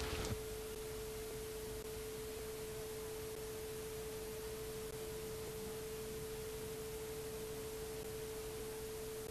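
A single steady electronic tone that holds one pitch without change, over a faint even hiss. The closing music trails off in the first half-second.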